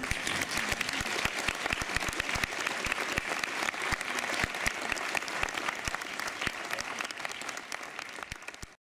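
Audience applause: many hands clapping in a dense, even patter that cuts off abruptly near the end.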